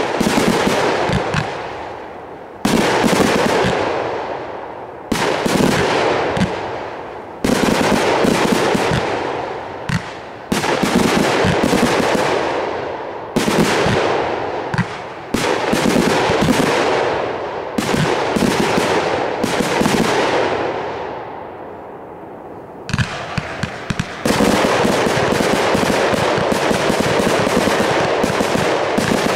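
Aerial fireworks going off in quick succession: a sharp volley about every two to three seconds, each followed by dense rapid popping that fades over a couple of seconds. Near the end the volleys run together into a continuous barrage.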